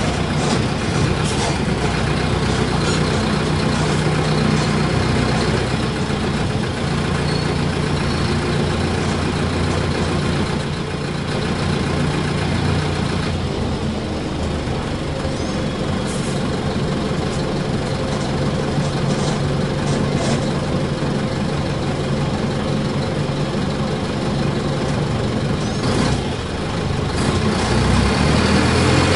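Diesel engine of a Mercedes-Benz OF-1722 bus chassis idling steadily.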